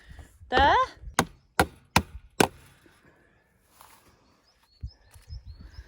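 Four hammer blows, about half a second apart, nailing a sign onto a gate.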